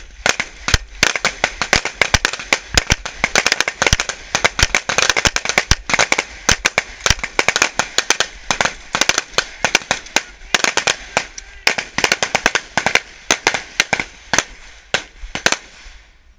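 Several pistols firing at once on a firing line: a rapid, irregular stream of overlapping handgun shots, several a second, without a break.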